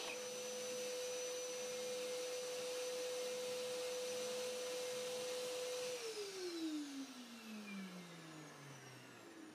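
Table saw and its attached dust extractor running with no wood in the blade, a steady whine. About six seconds in the machine is switched off, and the whine falls steadily in pitch as the motor and blade spin down.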